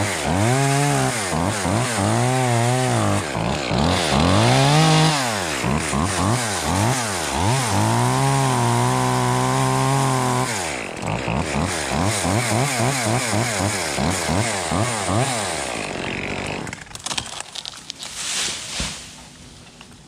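Two-stroke chainsaw revved up and down in repeated bursts while cutting through leafy branches, held at high revs for about two seconds near the middle. The engine drops away about sixteen seconds in.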